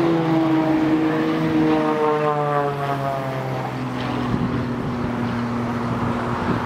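Propeller-driven aerobatic monoplane flying a display manoeuvre overhead, its piston engine and propeller droning. The engine note glides down in pitch over the first four seconds, then holds a steady lower drone.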